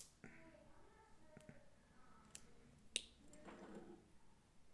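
Faint handling of small plastic action-figure parts: a sharp click right at the start, two more about two and a half and three seconds in, and light rustling between.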